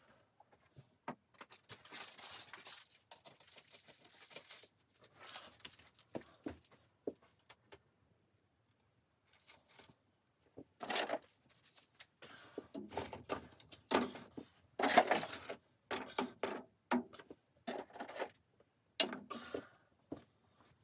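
Irregular close-up handling noises: rustling and scraping with sharp clicks and knocks, busier and louder in the second half, with a brief quiet pause in the middle.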